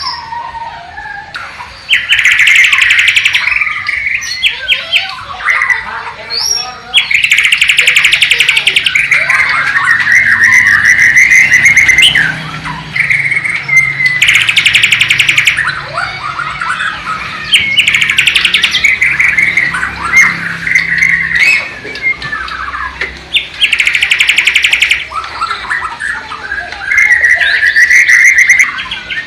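White-rumped shama (Bornean murai batu) singing loudly and continuously: a varied song of whistled and chirping phrases broken every few seconds by loud, rapid rattling trills. The song is filled with mimicked sikatan londo (nightingale) phrases.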